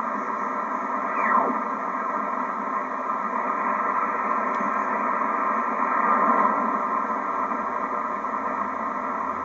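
Ten-Tec Paragon shortwave receiver hissing with static through its narrow receive passband, between stations. A heterodyne whistle sweeps down in pitch about a second in.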